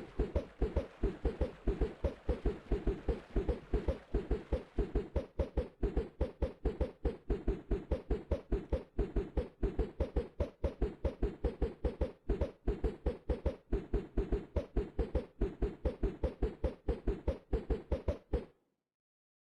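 Rapid, evenly spaced low thuds, about four a second, that cut off suddenly near the end.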